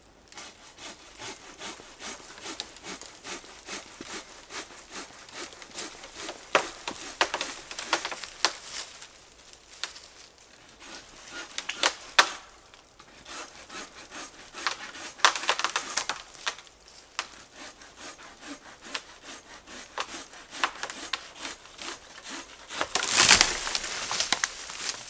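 Folding pruning handsaw (Silky Big Boy 2000) cutting through a fallen tree trunk in repeated rasping strokes, with a few sharper cracks. A louder crack comes near the end as the trunk gives way.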